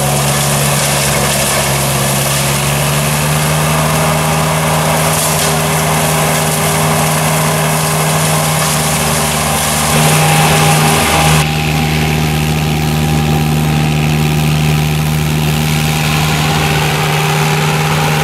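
Berti E-Trail remote-controlled tracked flail mulcher running at a steady pitch, its engine and mulcher rotor making a constant drone. It gets briefly louder about ten seconds in, and the sound changes abruptly a little later.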